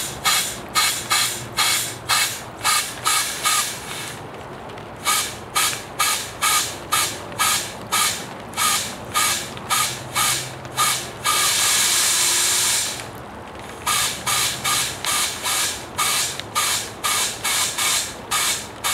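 Air being pumped into a radiator submerged in water for a leak test, in quick hissing strokes about two to three a second. There is a short pause around the fourth second and one longer steady hiss of air just past the middle.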